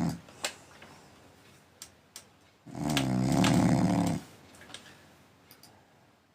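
French bulldog snoring: one long snore starting a little under three seconds in and lasting about a second and a half, with the end of another snore at the very start.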